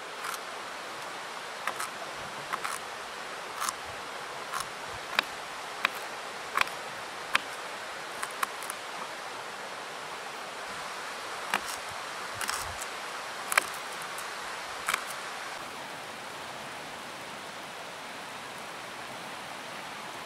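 Knife cutting burdock root on a wooden cutting board: a string of sharp, irregular taps over about the first fifteen seconds, then they stop. A steady hiss runs underneath.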